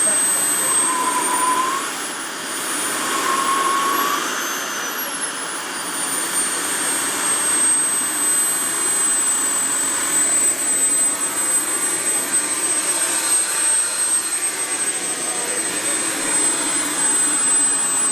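Model jet's B300F gas turbine running with a steady rush of exhaust and a high whine. The whine rises and falls in pitch over the first few seconds, then holds steady.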